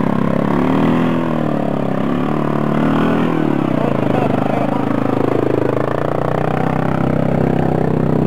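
ATV (quad bike) engine running close by, its revs rising and falling again and again.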